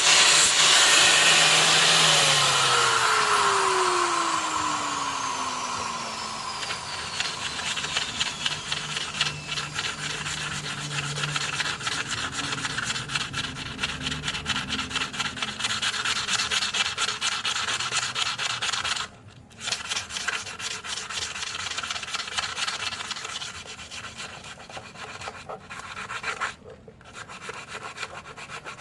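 A power tool spinning down with a falling whine in the first few seconds, then rapid, steady rubbing strokes of hand filing or sanding work on the piece, stopping briefly twice.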